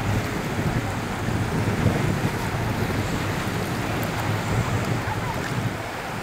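Wind buffeting the microphone over the steady wash of choppy sea.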